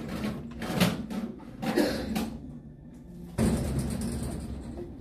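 Handling knocks and clunks as a display RPG-style rocket launcher is lifted off its wall hooks, with a louder clunk about three and a half seconds in.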